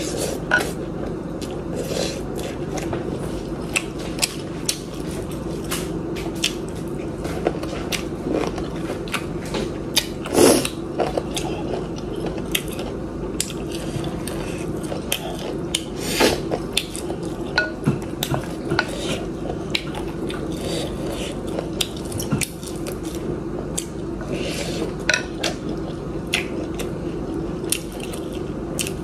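Close-up eating sounds: chewing and slurping noodle soup, with a wooden spoon clicking and scraping against a glass bowl in many short knocks, the loudest about ten seconds in. A steady low hum runs underneath.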